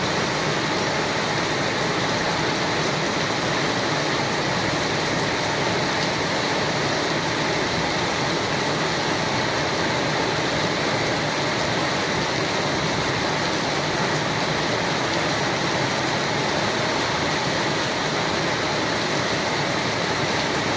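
Steady rain falling on a terrace: an even, unbroken hiss of many drops, with no single drops or gusts standing out.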